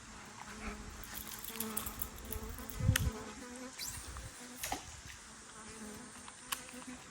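A flying insect buzzing close by, its hum wavering and coming and going, with a few sharp clicks and one louder thump about three seconds in.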